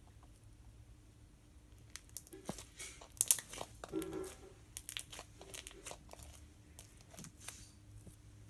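Slime being squished and poked by hand, giving irregular crackling and popping clicks that start about two seconds in and are loudest about a second later.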